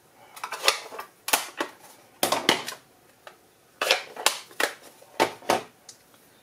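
Hard plastic ink pad cases being snapped shut and set down on the table: a string of sharp plastic clacks and clicks, irregularly spaced, some in quick pairs.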